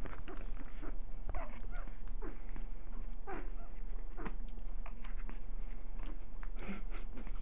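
Three-week-old Cairn terrier puppies nursing: a string of small, high, falling whimpers and squeaks, with little clicking suckling noises between them.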